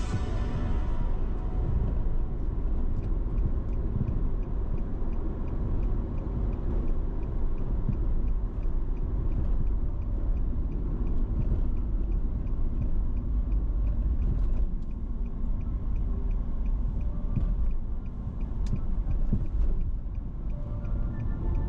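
Car driving along city streets: a steady low rumble of road and wind noise.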